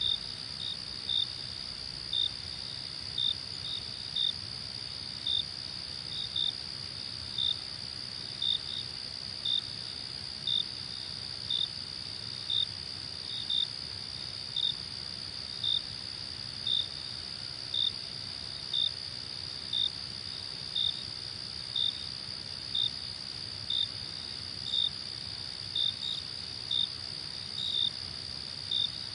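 Crickets at night: a steady high-pitched chorus, with one louder cricket chirping about once a second, sometimes twice in quick succession.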